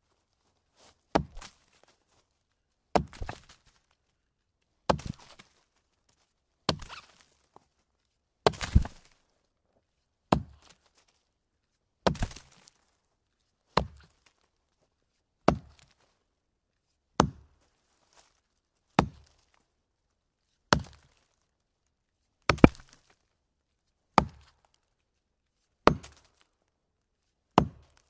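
An axe chopping into a log, one sharp, solid strike about every second and three-quarters, some followed by a quick smaller second knock, with silence between the blows.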